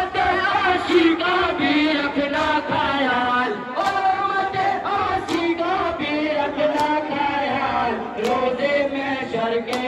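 A crowd of men chanting a Muharram lament (noha) in unison, loud and unbroken. From about four seconds in, sharp slaps come about every second and a half in time with the chant: hands beating on chests (matam).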